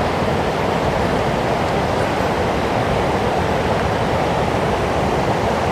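Athirappilly Falls, a large waterfall on the Chalakudy River, rushing steadily with no breaks, heard from the top of the falls.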